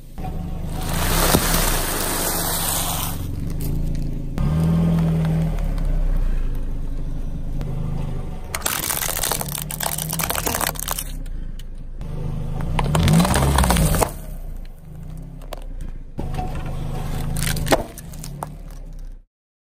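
A car rolling slowly with its engine running low while its tyre crushes small objects on asphalt: several long bursts of crunching and crackling, about a second in, around nine seconds and around thirteen seconds, and a sharp crack near the end.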